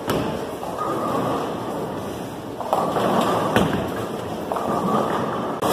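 Bowling ball rolling down the lane, then crashing into the pins about three seconds in, over the steady rumble and clatter of a bowling alley.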